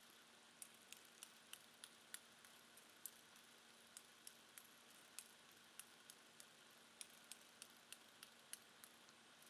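Brose flip-dot display's discs flipping one at a time, each giving a sharp little click, about two to three clicks a second at uneven spacing, as the Arduino rewrites the pattern dot by dot.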